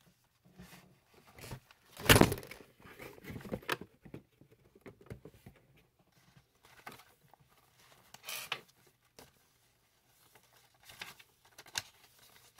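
Paper and card pages of a handmade junk journal being turned and handled, rustling and swishing, with the loudest page swish about two seconds in and several shorter rustles after.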